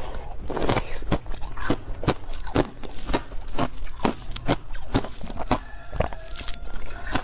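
A person biting and chewing clear ice: a quick, irregular series of sharp crunches and cracks, about three a second, picked up close by a clip-on microphone.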